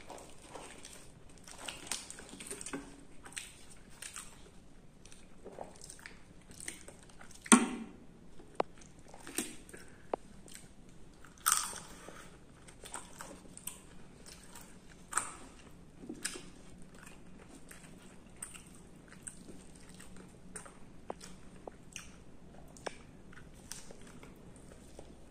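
Close-miked eating sounds: biting and chewing puri, the deep-fried puffed bread, with irregular crackles and three louder sharp snaps spread through the middle.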